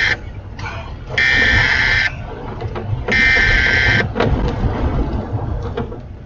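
Electronic alert beeping inside a moving vehicle: a buzzy tone about a second long that repeats every two seconds, the last beep ending about four seconds in. A steady low vehicle rumble with small rattles and clicks runs underneath.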